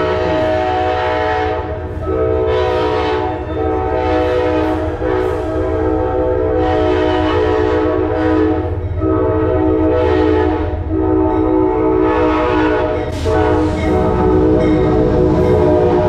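Train horn sounding one chord in a long run of blasts, each lasting a second or two with short breaks between them, over the steady low rumble of the train's engine.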